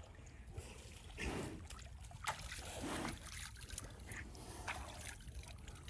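Pond water splashing and trickling around a water buffalo as its head is washed by hand, with several separate splashes.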